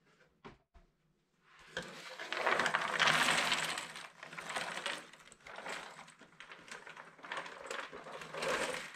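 1000 cardboard jigsaw puzzle pieces poured out of their cardboard box onto a board: a dense rattling clatter that starts about two seconds in, is loudest about a second later, then goes on in waves as the box is shaken empty. A few light clicks come before it as the box is handled.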